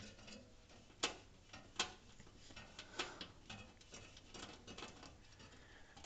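Faint small metallic clicks and ticks of a screwdriver working a motherboard mounting screw inside a metal computer case, with three sharper clicks at about one, two and three seconds in.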